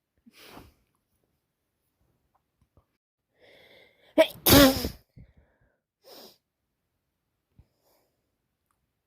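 A woman sneezes once, loudly, about four seconds in, after a short gasping intake of breath: a head cold.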